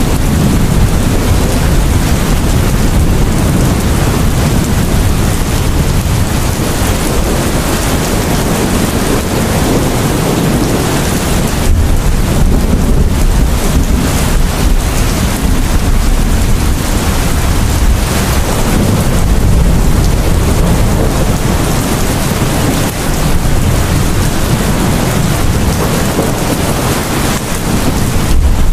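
Heavy rain pouring steadily, with low rolling thunder swelling a few times underneath.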